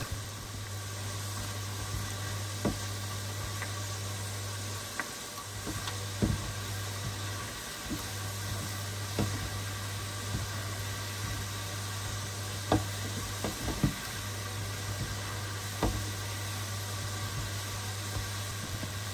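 Oil sizzling steadily as small cottage-cheese doughnut balls deep-fry in a pot, over a steady low hum. A few sharp knocks come at irregular moments as a utensil turns the balls against the pot.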